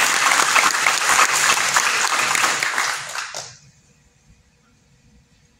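Applause from many hands, dense and even, dying away about three and a half seconds in and leaving quiet room tone.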